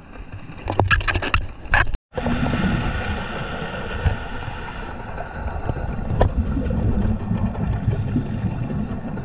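Underwater sound at a few metres' depth: a crackling rush of a diver's exhaled regulator bubbles in the first two seconds, then, after a brief dropout, the steady drone of a boat engine heard through the water, a low rumble with a hum above it.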